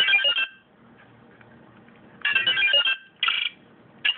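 Electronic beeps and short melodic tone runs from the speaker of a Phone Braver 07 flip-phone robot toy as its keypad buttons are pressed. There is a burst at the start, a longer one about two seconds in, and two short ones near the end.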